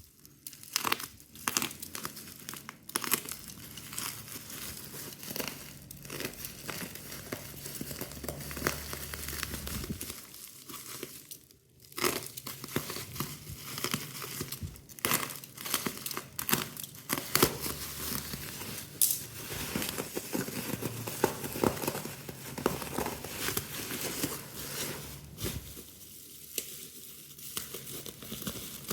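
Laptop packaging being unwrapped and handled: a run of irregular rustles and crackles, with short pauses about halfway through and near the end.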